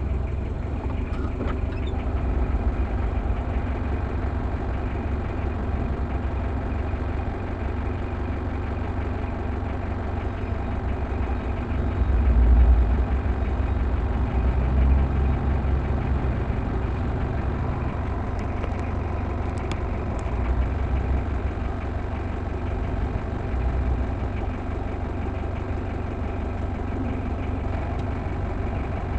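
Vehicle engine idling steadily, a low rumble heard from inside the cab, swelling briefly louder about twelve seconds in.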